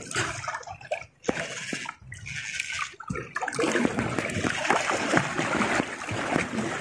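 Choppy sea waves slapping and splashing against a small outrigger boat's hull. The sound is patchy for the first three seconds, then becomes a dense, constant splashing.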